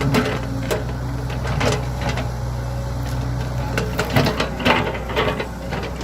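Excavator's diesel engine running steadily, with irregular knocks and clanks from the digging work, several close together about four to five seconds in.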